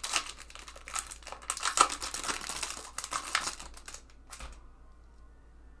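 Foil wrapper of a Topps 2019 Series 1 baseball card pack torn open and crinkled by hand, a run of crackles that stops about four seconds in.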